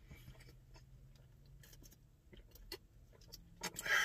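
Faint, scattered small clicks and rustles of someone handling takeout food, over a low steady hum, with a short breathy noise near the end.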